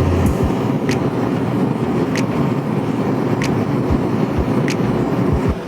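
Propane forge burner running with a steady roar, with a faint sharp tick recurring about every second and a quarter.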